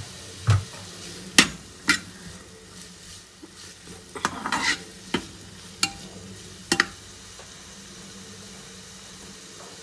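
Cooking spoon scraping and clinking against a non-stick frying pan as diced onion, capsicum and tomato are stirred, the vegetables sizzling softly in a little oil. Several sharp clinks in the first seven seconds, then only the soft sizzle.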